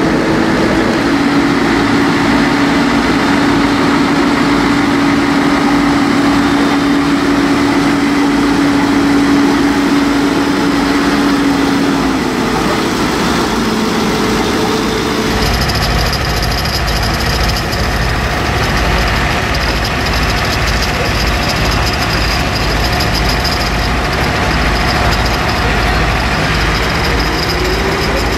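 Heavy-haulage truck diesel engines running steadily at idle. About halfway through the sound changes to a deeper, throbbing engine sound with a faint high whine over it.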